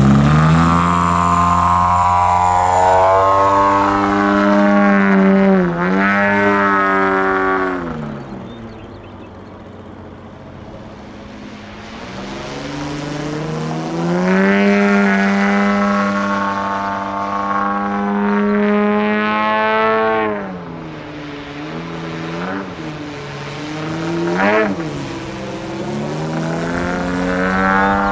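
Engine and propeller of an AJ Laser 123 radio-controlled aerobatic plane at high power on its takeoff run and in flight. The pitch rises and falls with the throttle, drops low and quieter for a few seconds about a third of the way in, then climbs back up.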